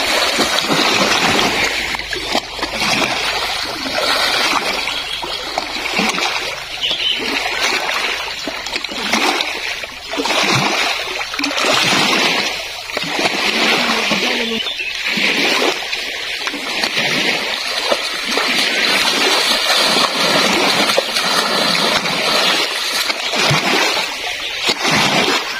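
Lake water splashing and sloshing around a person swimming and then wading, in repeated surges every second or two.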